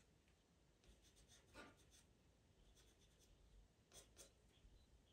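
Pastel pencil scratching faintly across sanded Pastelmat paper in short, quick fur strokes. There is a run of light strokes about a second in, a few more near three seconds, and two stronger strokes about four seconds in.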